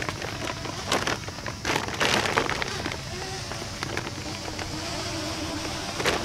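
Crackling handling noises and splashes at the water's edge as a common carp is put back into the lake, busiest in the first half. Faint steady background music comes in about halfway through.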